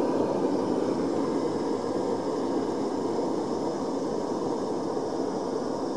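Freshly lit fan-blown gas burner running in a firebrick firebox, a steady rush of flame and blower air that slowly gets a little quieter.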